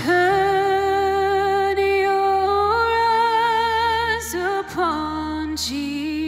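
A woman singing a slow worship song, holding long notes with vibrato over a steady instrumental backing. The melody steps up in the middle and falls back near the end.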